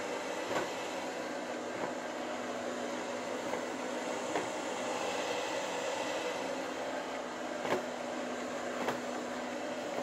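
Robot vacuum cleaner running with a steady hum, broken by about six short knocks as it bumps into the legs of the stool hemming it in; the loudest knock comes near the end.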